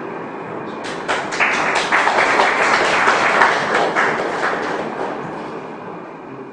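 Audience applauding: the clapping starts about a second in, is strongest in the middle and dies away near the end.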